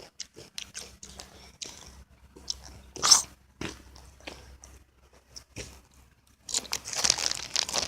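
Someone crunching and chewing a crunchy snack close to the microphone: a run of short crunches, a louder one about three seconds in, and a longer, denser stretch of crunching noise near the end.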